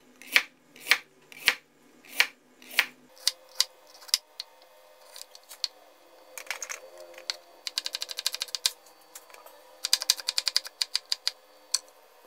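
Kitchen knife cutting white radish (daikon) on a plastic cutting board. It gives single knocks about every half second for the first few seconds, then two quick runs of rapid chopping later on.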